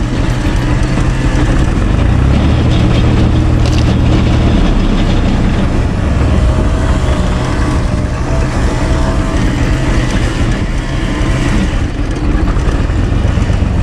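Four-cylinder diesel engine of a UTB Universal 445 tractor running steadily under load, driving a PTO screw-cone log splitter that is boring into a log.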